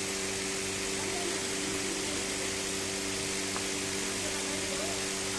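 Steady mechanical hum of workshop machinery: a constant low drone of a few fixed tones under an even hiss, holding level throughout.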